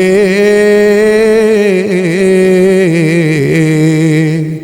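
A man's solo voice holding one long, ornamented note in an Arabic Shia lament chant, the pitch wavering and turning, breaking off just at the end.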